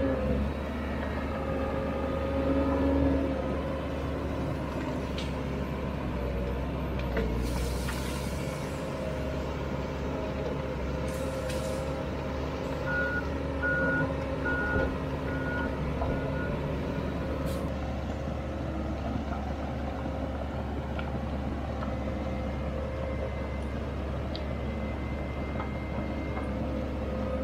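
Komatsu D31EX crawler dozer's diesel engine running steadily under load while clearing brush. About halfway through, its backup alarm sounds a run of six or seven beeps, about two a second.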